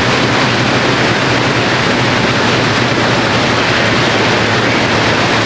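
Air bike fans spinning, a loud, steady rush of air with a faint low hum.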